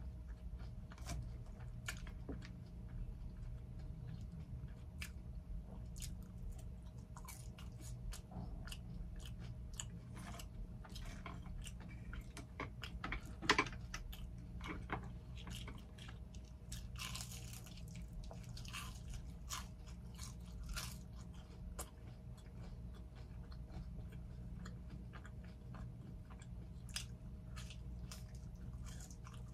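Close-miked chewing of a cheeseburger meal: wet mouth sounds with many small crisp crunches throughout, and one sharper, louder crunch about halfway through.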